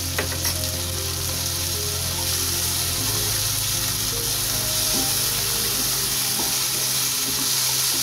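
Onion and tomato masala sizzling in hot oil in a non-stick kadhai as it is stirred with a spatula, with a couple of sharp scraping clicks near the start.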